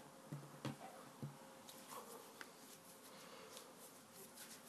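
Very faint handling sounds of hands picking up and working a lump of play dough on a wooden table: a few soft taps in the first second or so, then light scattered clicks and rustles.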